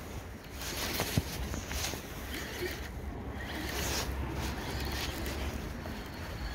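Baitcasting reel being cranked to retrieve a lure, a raspy whirring that comes in short runs, with a sharp click about a second in.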